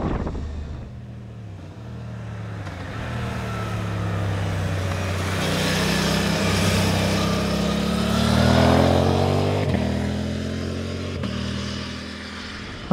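Motorcycle riding past, changing up through the gears as it approaches, loudest about two thirds of the way in, its engine note dropping as it goes by and fading as it rides away.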